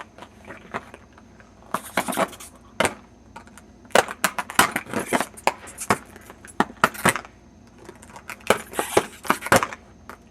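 Irregular metallic clicks, clinks and rustling as padlocks and their packaging are handled, in uneven clusters of sharp clacks.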